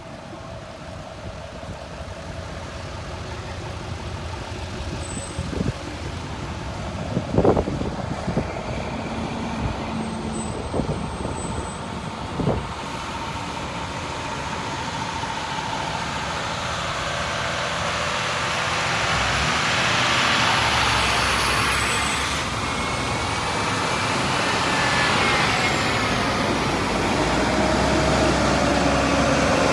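A convoy of bucket trucks on heavy truck chassis running and pulling out one after another, the engine noise growing steadily louder as they draw near. A few short sharp knocks come about a quarter to two fifths of the way in.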